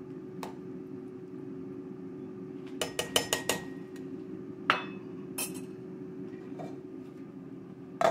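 A metal ladle clinks against a stainless steel stockpot in a quick run of about five taps, followed by two single knocks. Near the end the glass lid is set down on the pot with a louder clank, all over a steady low hum.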